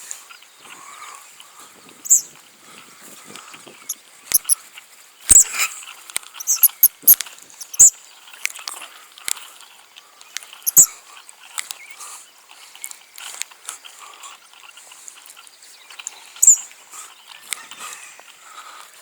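A bird making sharp, high-pitched chirps and clicks in irregular bursts, some of them with sharp knock-like taps, over a low background hiss.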